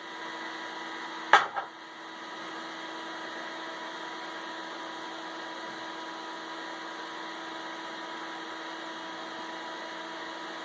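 Steady hum of a 3D printer's cooling fans and electronics, running with the heated bed on, carrying a few steady tones. A sharp click comes about one and a half seconds in.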